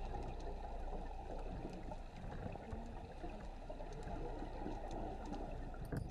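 Muffled underwater sound picked up through a dive camera's housing: a steady low rush of water with faint scattered clicks.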